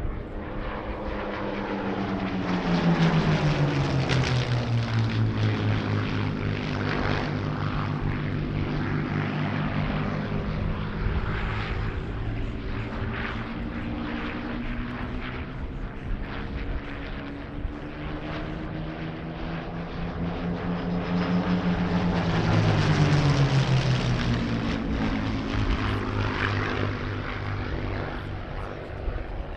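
Two Supermarine Spitfire Mk IX fighters flying in formation, their Rolls-Royce Merlin V12 engines running together. They pass twice, each pass swelling in loudness as the engine note drops in pitch.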